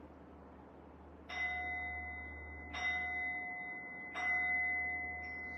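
Small handheld singing bowl struck three times with a striker, about a second and a half apart. Each strike leaves a long, clear ring of two main pitches that carries over into the next.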